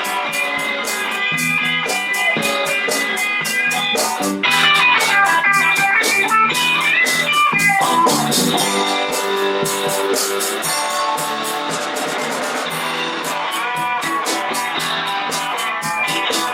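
A band playing live, led by an electric guitar holding and bending notes over a steady, evenly ticking beat.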